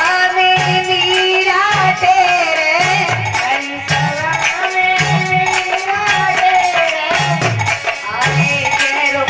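Devotional folk song: a female voice sings long, wavering melodic lines over a steady drum beat and jingling tambourine-like percussion.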